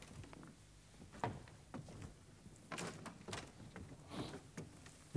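Faint, irregular footsteps and knocks on wooden floorboards, then a hand fumbling at the handle of a painted prop door near the end.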